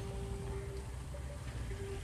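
A motor running steadily: a low rumble under a steady hum, which drops out for about a second midway and then returns.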